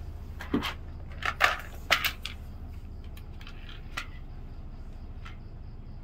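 A handful of short, sharp clicks and taps, most of them bunched in the first two and a half seconds with a couple more later, from small sewing tools being handled at the work table during hand-basting, over a steady low hum.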